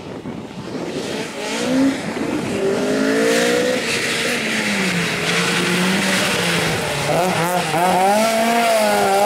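Opel Ascona 400 rally car's four-cylinder engine revving hard and growing louder as the car approaches. The revs drop about halfway through, then rise and fall quickly several times as it brakes, turns and pulls away.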